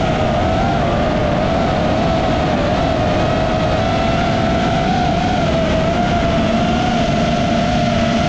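FPV racing quadcopter's motors whining at a steady high pitch that wavers slightly with throttle, over a constant rush of wind noise.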